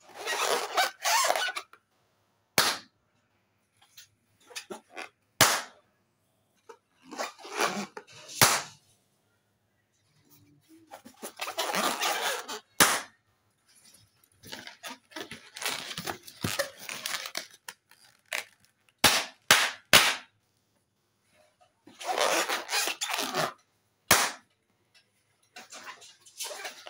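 Small latex balloons squeezed and twisted by hand, the rubber rubbing in noisy stretches of a second or two, each stretch ending in a sharp pop. About eight pops in all, with three in quick succession a little past the middle.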